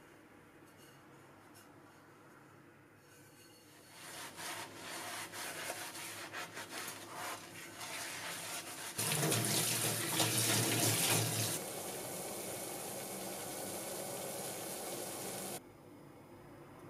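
A soapy sponge scrubbing a new cast-iron skillet in a stainless-steel sink, washing it before seasoning. Then the tap runs onto it, loudest for a couple of seconds, settles into a steady hiss and cuts off suddenly near the end.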